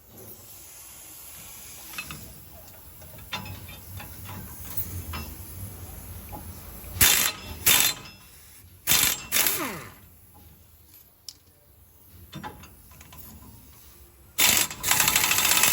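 Impact wrench run in short bursts to loosen the 21 mm nuts on the rear leaf-spring U-bolts: four quick bursts around halfway through, then a longer run near the end, with a falling whine as it spins down. Lighter clicks and taps of tools come between the bursts.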